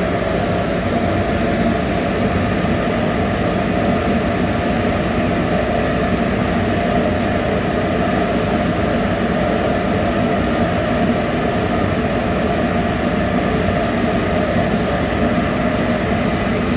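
Loewer 3DBB brush sanding machine running steadily as its rotating brushes sand floor grates: an even, unbroken machine noise that does not change.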